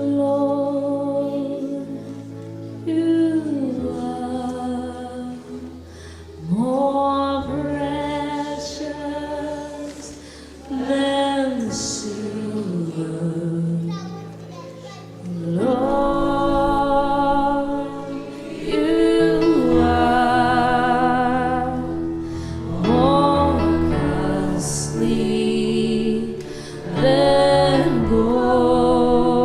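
Worship music: a woman singing long, gliding phrases with vibrato over steady held chords, rising and falling in swells every few seconds.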